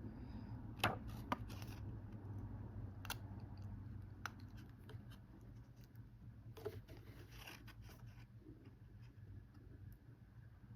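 Small metal repair tool scraping and clicking against a phone's camera glass and frame as the broken glass is pried off: scattered faint clicks and scrapes, a few sharper ticks about a second in, over a steady low hum.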